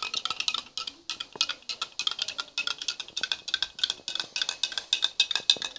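Metal dessert spoon stirring borax powder into hot water in a bowl, clinking quickly and steadily against the bowl's sides and bottom.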